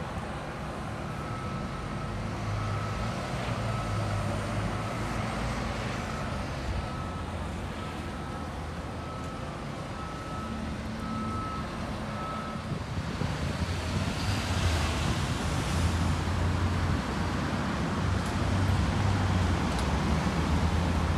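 City street traffic with buses running, a low engine hum under a steady rush. For about the first half a single-pitched electronic beep repeats roughly every 0.7 seconds, then stops; from about two-thirds of the way in the noise grows louder as a heavy vehicle passes close by.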